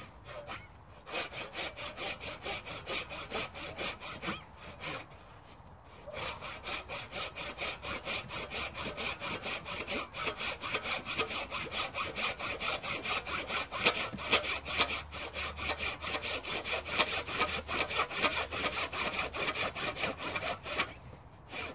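Hand saw cutting through a log for firewood: brisk, even back-and-forth strokes of the blade in the wood. Sawing pauses briefly about a second in and again around the fifth second, then stops shortly before the end.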